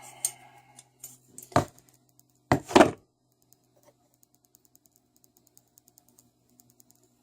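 Hand tools knocking and clanking on a Tecumseh small engine while the crankshaft pulley is being worked off: a few sharp knocks, the loudest pair near the middle, then faint rapid light clicking.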